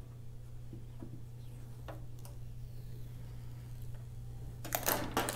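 A few faint clicks, then a quick cluster of crackling clicks near the end, from the protective plastic film being peeled off a tempered-glass screen protector and handled, over a steady low hum.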